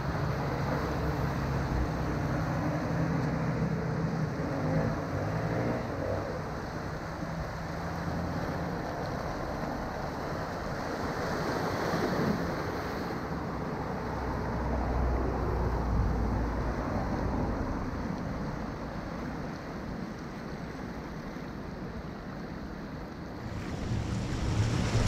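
Seaside ambience: small waves washing against the rocks at the foot of a sea wall, with road traffic passing and wind buffeting the microphone. The sound gets louder near the end.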